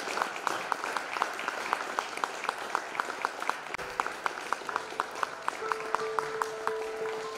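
Audience applause with a steady beat of claps, about four a second. A few seconds in, held notes of music, like a piano, come in under the clapping.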